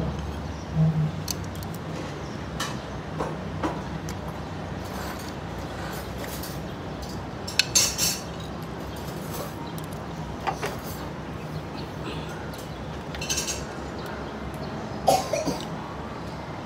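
Scattered light clinks and clicks over a steady low hum, with the sharpest clinks about 8 seconds in and again near the end.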